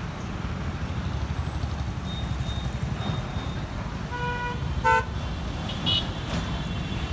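Busy city road traffic: a steady rumble of car, scooter, motorcycle and lorry engines and tyres. A vehicle horn honks about four seconds in, a louder short honk follows just after, and a higher-pitched short beep sounds about a second later.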